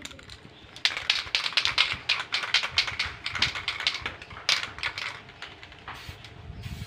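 Aerosol spray paint can being shaken, its mixing ball rattling in rapid sharp clacks, about five a second. The rattling stops about five seconds in, with a few last clacks after.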